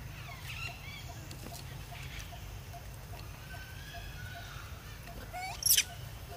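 Long-tailed macaques calling: thin, high chirps and drawn-out calls, with one short, loud, shrill squeal near the end, over a steady low rumble.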